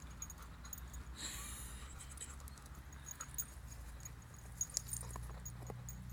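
A dog pawing and scrabbling at a tree stump it is trying to pull free: light scattered scratches and clicks, with one short scrape about a second in, over a low steady rumble.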